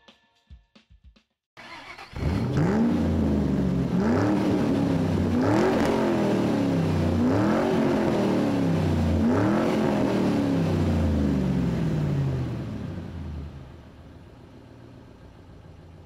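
Car engine revving several times, its pitch climbing and falling back about every two seconds. It then drops to a quieter steady running near the end.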